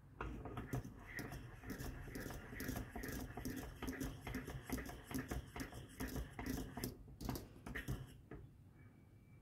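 A metal utensil stirring thick pomegranate lokum paste in a stainless steel pot, with rapid scraping and clicking against the pot's sides and bottom; the stirring stops about eight seconds in.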